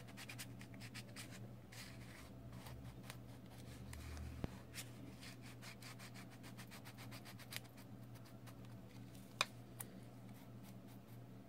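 Faint scraping and ticking of a small prying card being worked under the edge of a Samsung Galaxy J6's glued screen, prising the adhesive loose, with two sharper clicks, one near the middle and one later.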